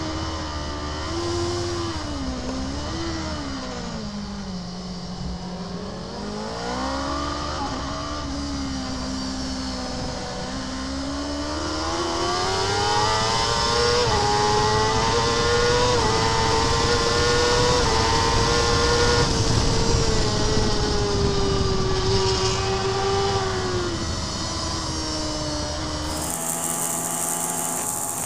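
Kawasaki superbike's inline-four engine heard from its onboard camera at racing speed. Its revs drop in steps through downshifts about four to six seconds in, then climb and hold high through a long fast stretch before easing off. Near the end a cut brings in another superbike's engine under loud wind rush.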